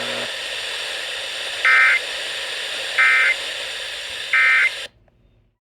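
Emergency Alert System end-of-message code: three short bursts of warbling digital data tones, about a second apart, over a steady hiss. The hiss cuts off abruptly just after the third burst.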